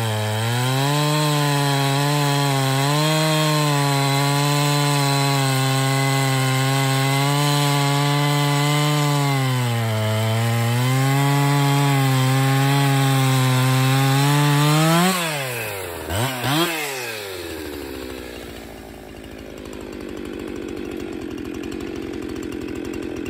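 Husqvarna 365 Special two-stroke chainsaw with an Archer full-skip round-file chain cutting wood under load, the engine pitch sagging and recovering as the chain bites. About fifteen seconds in it breaks through and revs up, is blipped twice, then drops to idle.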